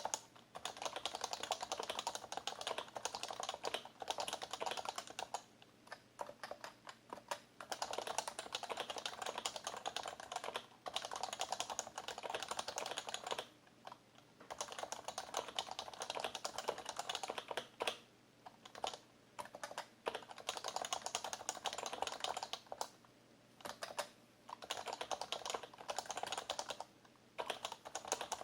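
Fast typing on an HHKB Professional BT keyboard with Topre electro-capacitive switches: keystrokes come in dense runs broken by short pauses of under a second every few seconds.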